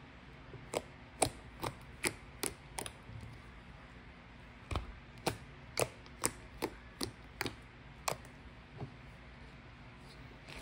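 A series of sharp taps, about two to three a second, in two runs: six in the first three seconds, then after a pause of nearly two seconds about nine more.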